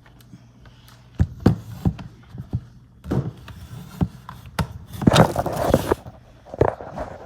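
Kitchenware being handled: a run of sharp knocks, then scraping and rustling.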